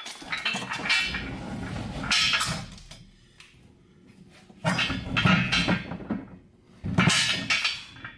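Metal parts scraping and clanking in three rough bursts of a second or two each, with quieter gaps between.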